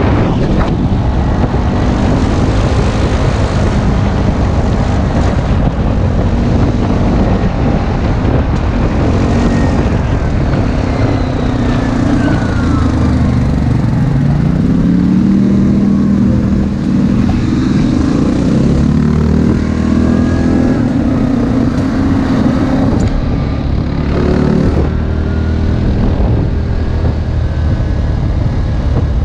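ATV engines running hard off-road, the pitch rising and falling with the throttle, with a clear climb in revs about halfway through.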